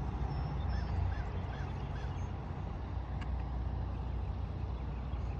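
A bird calls four times in quick succession, short honking calls about 0.4 s apart, over a steady low rumble; a faint click follows about three seconds in.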